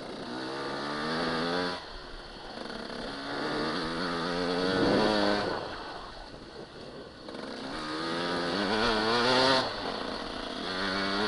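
Dirt bike engine under the rider, revving up in about four rising surges and easing off between them as it is ridden along a trail.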